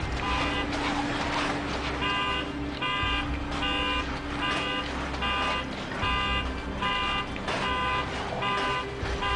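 Car alarm beeping in a steady repeating pattern, about two beeps a second, over a low rumble.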